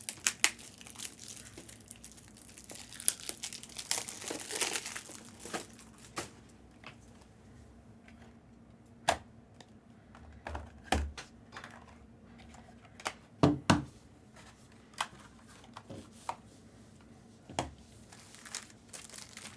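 Trading-card box and pack wrapping being handled and torn open: plastic and foil crinkling and tearing, followed by scattered taps and clicks of cards and packaging being handled.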